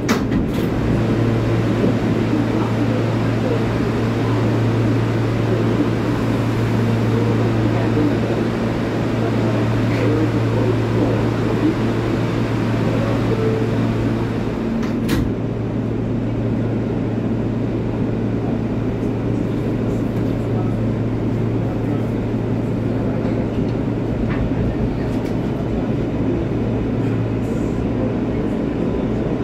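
R143 subway car standing in a station with a steady low hum, a sharp click about halfway through, and the car starting to pull out near the end.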